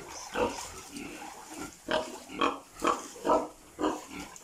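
Domestic pig grunting repeatedly: a series of short grunts, coming about every half second in the second half.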